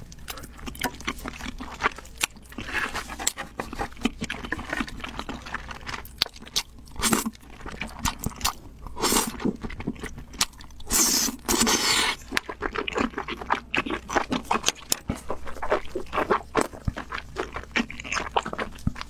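Close-miked mukbang eating: wet slurping of wide glass noodles in sticky spicy sauce and chewing with many small smacks and clicks. A few longer, louder slurps stand out, the longest about two thirds of the way through.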